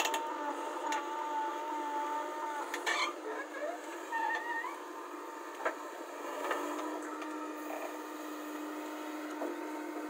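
JCB 3DX backhoe loader digging: its diesel engine and hydraulics run with a steady, wavering whine that rises briefly about four seconds in, with occasional sharp knocks of the bucket working the soil.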